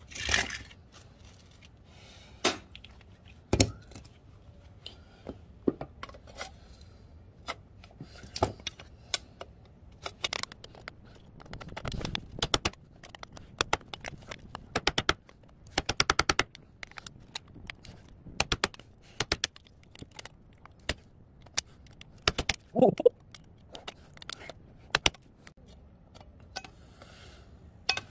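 Sharp metal clicks, clanks and scrapes as a slotted steel angle bracket is levered against a small transformer's steel frame to pry it apart; some of the clicks come in quick rattling runs.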